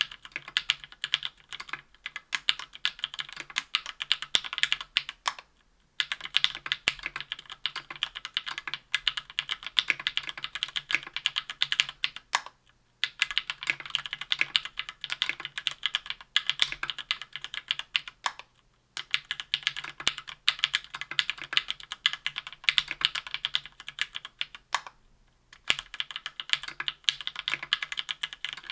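Typing on a KBDfans Tofu 60% aluminium keyboard with lubed SP-Star White Meteor linear switches and GMK keycaps: a dense run of keystroke clacks, broken by short pauses about every six seconds.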